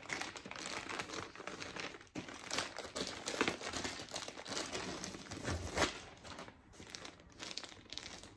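Clear plastic packaging bag crinkling as it is handled and squeezed, in irregular bursts that thin out and grow quieter over the last couple of seconds.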